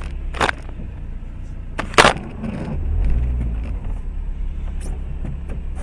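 Steady low hum of a car's engine and tyres heard inside the cabin, with a short sharp knock about half a second in and a louder, sharper knock at about two seconds.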